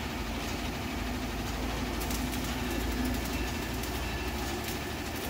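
Tata tipper truck's diesel engine running with a steady low rumble while its raised dump body lowers.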